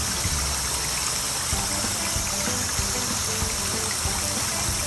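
Steady hiss of a steak searing in a frying pan and a flowing stream, under soft background music.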